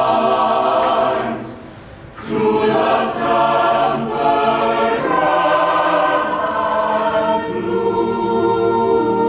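A choir singing held chords, with a short break about two seconds in.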